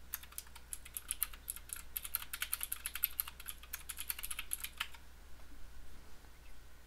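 Typing on a computer keyboard: a quick, uneven run of key clicks that stops about five seconds in.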